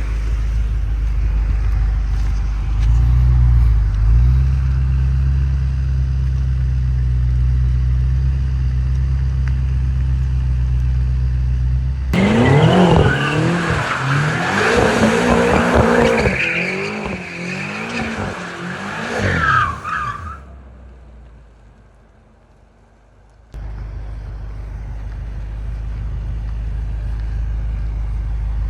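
BMW M5 F10's twin-turbo V8 running with a steady low drone. About twelve seconds in it abruptly changes to revving up and down repeatedly with a loud tyre squeal, as in a drift. That fades out over several seconds, and after a brief lull a steady low engine drone comes back suddenly.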